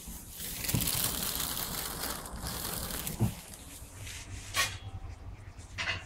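Crinkling, rustling noise for about three seconds, then a soft thump and two short, sharp clicks.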